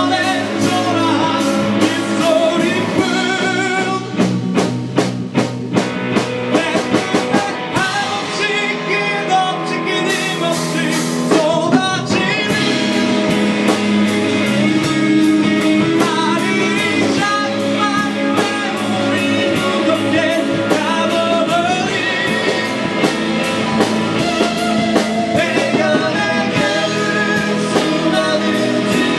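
Live rock band playing loud: Stratocaster-style electric guitar and drums with a man singing, in a run of sharp rhythmic strikes a few seconds in.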